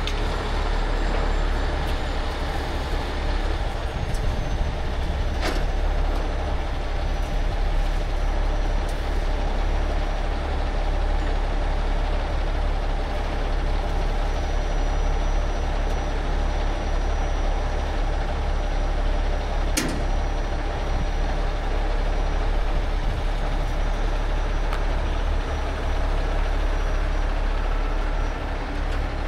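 Heavy rotator tow truck's diesel engine running steadily at a constant speed, a deep even rumble. Two short sharp knocks sound over it, one about five seconds in and one about two-thirds of the way through.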